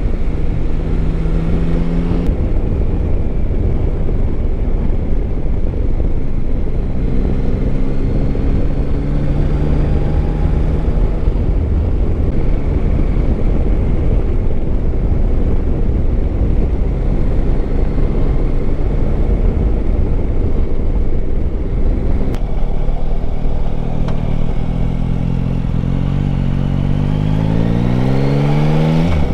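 Yamaha Tracer 9 GT's 890 cc three-cylinder engine running under way, its pitch stepping up and down with throttle and gear, over heavy wind rumble on the microphone. Near the end the engine revs rise sharply as the bike accelerates.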